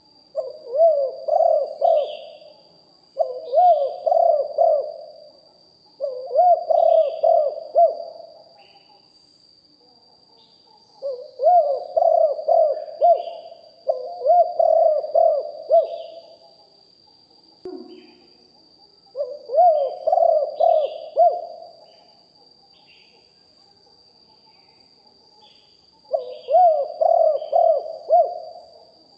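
Spotted dove cooing: seven phrases of quick, rolling coo notes, each lasting about two to three seconds, with pauses of a few seconds between them. Faint chirps of small birds sound higher up between the phrases.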